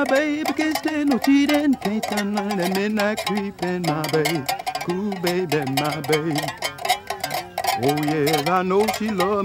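Blues played on a one-string slide instrument: plucked notes that slide up and bend between pitches, with a sharp upward slide at the start and wavering held notes near the end.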